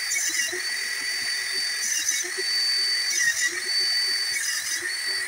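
High-pitched whine of a small high-speed motor running steadily, with a slight dip in pitch roughly every second and a half. It cuts off suddenly near the end.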